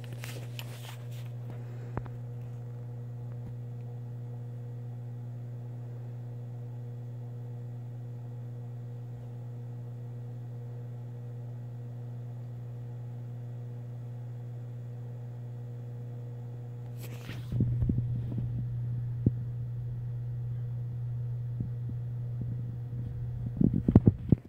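Steady hum with a few overtones from reef aquarium equipment such as the pumps. About two-thirds of the way through, a louder low rumbling noise joins it, with a few sharp knocks near the end.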